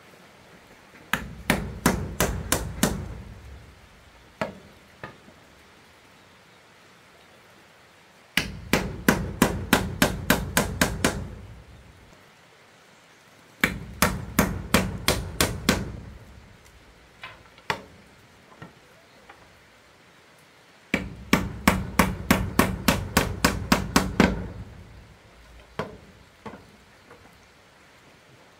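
Hammering in quick runs of sharp wooden knocks, about four to five blows a second, in four bursts of two to three seconds with a few single knocks between: small wooden pegs being driven to fasten bamboo wall pieces.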